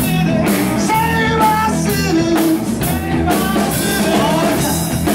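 Live blues-rock band playing: amplified electric guitars over a drum kit keeping a steady beat.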